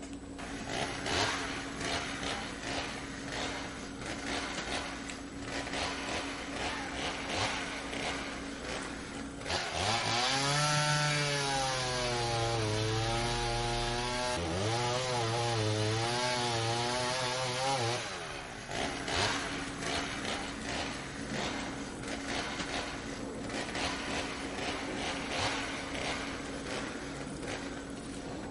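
A kitten eating wet cat food noisily, with rapid wet chewing and smacking, the buzzsaw-like eating noise of a hungry kitten. For about eight seconds in the middle a louder buzzing drone, wavering in pitch, takes over before the chewing returns.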